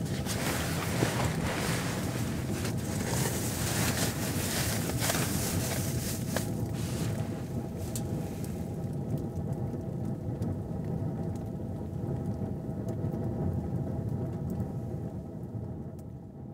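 Sleeping bag rustling and crackling as someone shifts and settles inside it, over a steady low rumble; the rustling dies away about halfway through, leaving the rumble, which fades out near the end.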